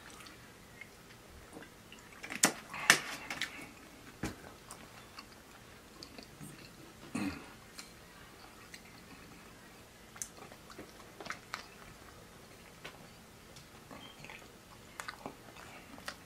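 Close-up mouth sounds of a person biting into and chewing a soft chicken sandwich: scattered wet smacks and clicks, the loudest a pair about two and a half to three seconds in.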